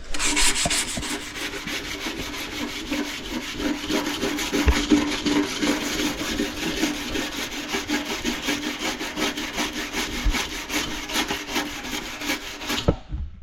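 Rapid back-and-forth hand scrubbing of a cracked copper radiator seam with an abrasive pad or brush, cleaning off dirt and old filler before welding; the scrubbing stops shortly before the end.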